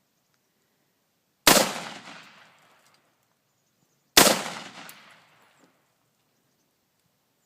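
Two AR-15 rifle shots about two and a half seconds apart, each a sharp crack that dies away over about a second.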